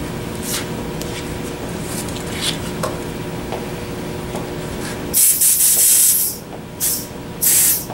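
Compressed-air blow gun blasting air through a small carburetor part: a hiss lasting about a second starts about five seconds in, followed by a short blast and then another.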